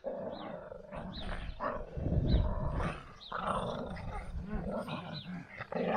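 Small dogs play-fighting, growling and snarling in rough, irregular bursts, the loudest about two seconds in.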